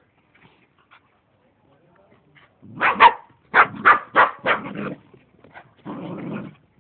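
Dog barking in play: a quick run of about seven sharp barks starting about three seconds in, followed by a short, rougher noisy sound near the end.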